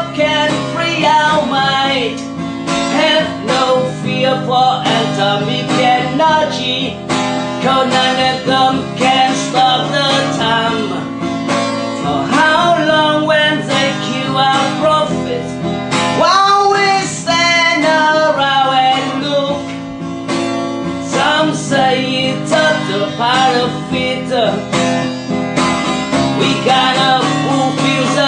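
Music: an acoustic guitar strummed and picked, carrying on steadily with no sung words recognised.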